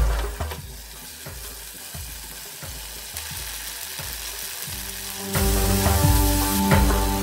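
Tomato, onion and ginger-garlic paste frying in oil in a nonstick pan, a steady sizzle as a wooden spatula stirs it. Background music grows louder about five seconds in.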